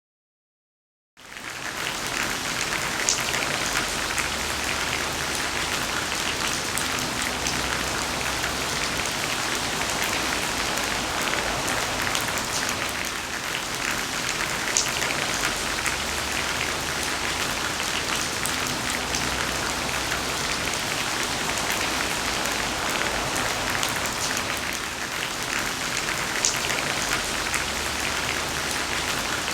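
Steady rain falling on a surface: a dense, even hiss with scattered louder drops, starting abruptly about a second in after digital silence.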